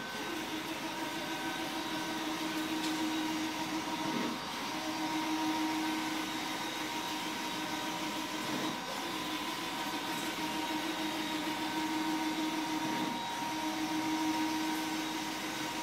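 ColorSpan 72UVR UV wide-format printer running a print: a steady machine whir and fan hiss, with the carriage drive's hum breaking and dipping briefly about every four seconds as the print-head carriage ends each pass and reverses.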